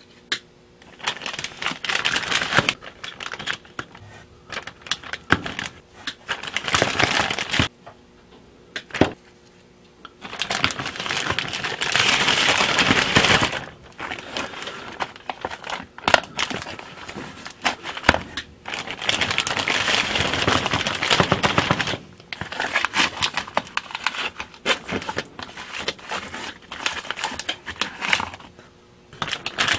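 Plastic zipper bag crinkling and rustling as it is handled, in irregular bursts of a second or two, with a few sharp clicks in between.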